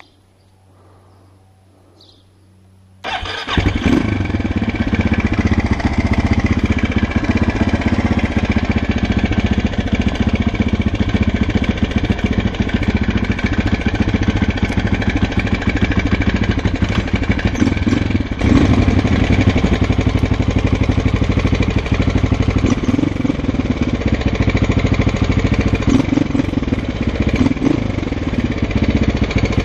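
2006 Husqvarna SM 610's single-cylinder four-stroke engine starting about three seconds in and then running steadily, with the knock the owner is recording coming from the engine.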